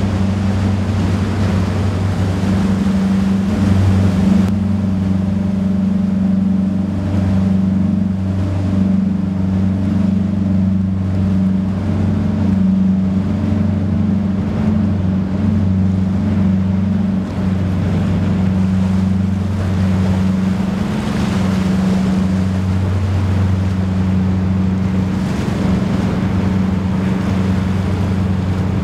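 Marine diesel engines running with a steady low drone, over a wash of water and wind noise.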